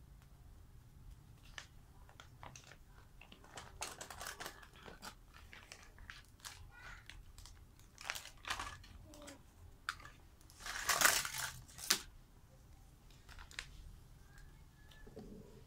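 A clear plastic bag crinkling and rustling as plastic toy food pieces and a tray are pulled out of it, with light clicks of hard plastic pieces. The loudest crinkling comes about two-thirds of the way through.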